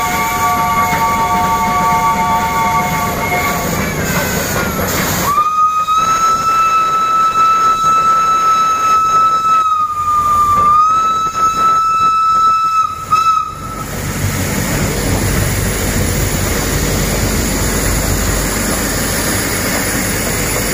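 Steam locomotive whistle blowing twice: first a chord of several notes for about four seconds, then after a short gap one long single-note blast of about eight seconds that sags briefly in pitch near the middle. After that, the steady hiss and rumble of the steam locomotive rolling slowly past.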